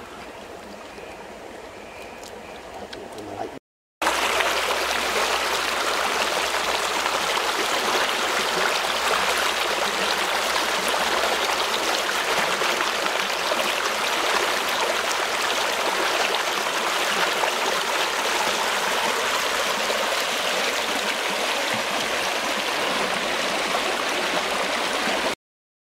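Steady, even rush of flowing water, loud and unchanging. It cuts in sharply about four seconds in after a moment of silence and cuts off just as sharply near the end. Before it there is only quiet outdoor ambience.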